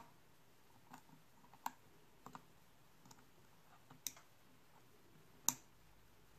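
Faint, scattered clicks of metal tweezers tapping against a circuit board and a small chip, about six in all, three of them louder and sharper than the rest.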